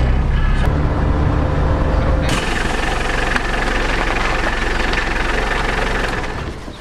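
Van engine idling steadily, heard first inside the cabin and then, after a sudden change in the sound a little over two seconds in, from beside the open driver's door. The sound drops away near the end.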